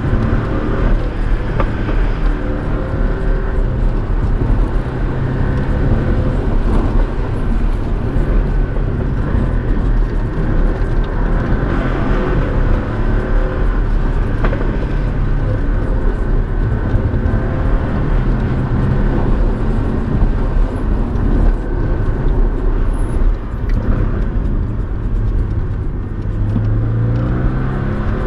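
Porsche 718's engine and tyre noise heard from inside the cabin while driving. The engine note rises and falls with the throttle, climbing near the end as it accelerates.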